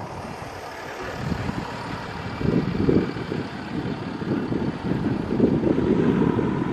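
Wind buffeting the microphone: a gusty low rumble that grows stronger about two and a half seconds in.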